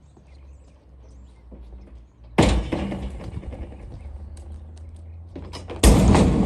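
Two loud crashes about three and a half seconds apart, each trailing off in a clattering rattle: the broken plastic-and-metal garage door opener being thrown into a garbage can.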